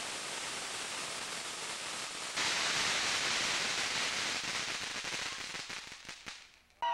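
Firework fountains spraying sparks with a steady hiss. It gets louder about two and a half seconds in, then dies away over the last two seconds with a few crackles as the fountain burns out.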